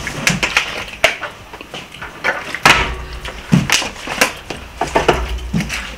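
A string of knocks and thuds from a partly filled plastic bottle being flipped and set down on a glass table top.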